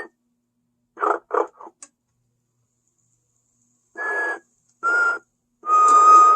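1995 animated sleeping Santa toy snoring: short snores at the start and a quick pair about a second in, then after a pause three snoring breaths from about four seconds in, each carrying a steady whistle. Each whistle is a little lower than the one before, and the last is the longest, about a second.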